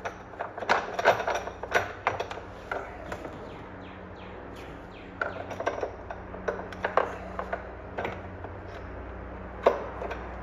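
Irregular clicks and knocks of a plastic battery hold-down clamp being fumbled into place over golf-cart batteries and hooked onto its metal rod. The clicks come in two clusters, with one louder knock near the end.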